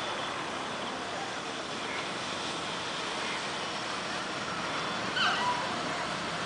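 Steady outdoor background noise with a brief high squeak about five seconds in.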